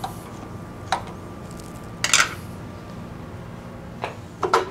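Scattered sharp metal clinks and clanks of steel tooling and a milling-machine vise being handled as the tapped part is freed. The loudest clank comes about two seconds in, with a quick pair more near the end.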